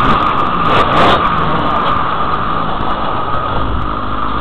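Motocross dirt bike engine under the rider, revving up and down near the start and then running steadier, with wind rushing over a helmet-mounted camera.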